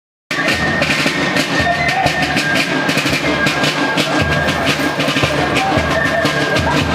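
Music with drums, cutting in abruptly from dead silence and carrying a steady drum beat under a held high note.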